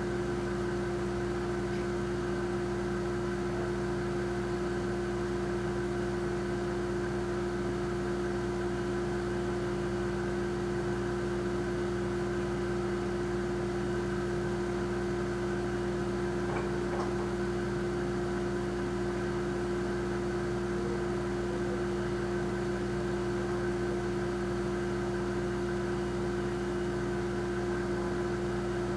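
Kitchen refrigerator's compressor running with a steady, unchanging hum.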